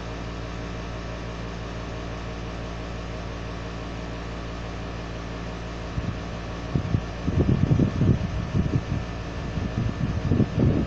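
A steady hum made of several level tones, like a fan or electrical noise. From about six seconds in it is overlaid by a run of irregular, loud, low rumbling bursts.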